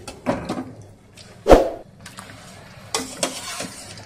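Chicken pieces and potatoes dropped by hand into a kadai of thick masala: a series of short wet plops and knocks, the loudest about a second and a half in.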